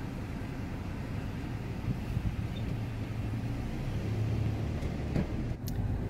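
Low, steady rumble of motor-vehicle engine and road noise. It grows a little louder, with a steady engine hum, in the second half.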